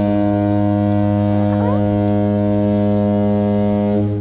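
Loud, steady electronic buzz: one low droning tone with many overtones, held without change. It starts and cuts off abruptly, like a buzzer sound effect.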